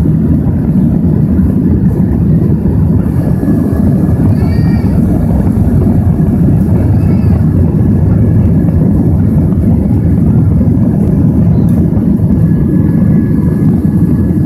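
Cabin noise inside a Boeing 737-400 climbing after takeoff: the CFM56 jet engines and airflow make a loud, steady, deep rumble with no change through the climb.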